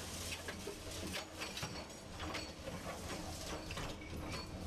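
Heavy machine engine running with a low steady drone, with irregular clicks and clatter over it.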